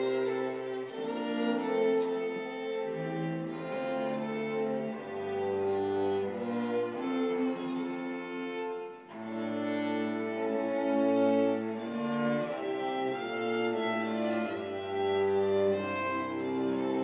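A string quartet of two violins, viola and cello playing a piece of classical chamber music, with held bowed notes over a low cello line. The music breaks off for a moment about halfway through, then the next phrase begins.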